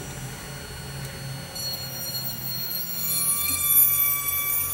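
Hand-held electric rotary tool running with a high, steady whine while its small burr bit grinds out the bore of an ebony handle. About three seconds in, the sound gets louder and settles on a new steady pitch, with a low motor hum underneath.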